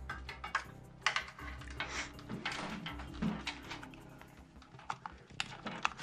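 Hands handling cables and plastic parts inside a computer case: scattered light clicks and knocks with some rustling.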